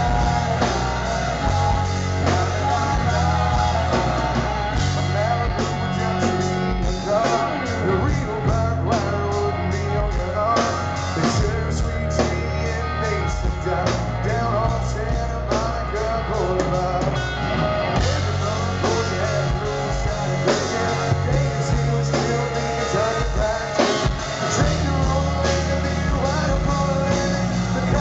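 Live hard rock band playing a song: a male lead vocal sung over distorted electric guitars, bass and drums, loud and continuous.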